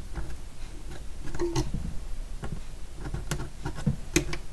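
A few irregular light clicks and taps from handling a thin wooden moulding strip and a pen against the wooden hull of a model ship while marking the strip for length.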